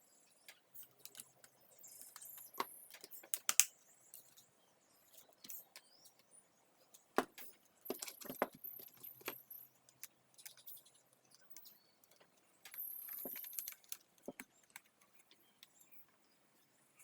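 Small plastic vacuum parts and screws being handled during reassembly: scattered clicks, knocks and light rattles, with three brief spells of high scraping or jingling.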